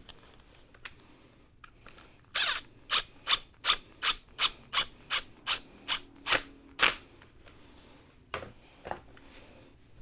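Cordless power driver run in about a dozen short trigger bursts, two to three a second, for about four and a half seconds as it turns a bolt on a disc brake caliper. A few light clicks of the caliper being handled come before and after.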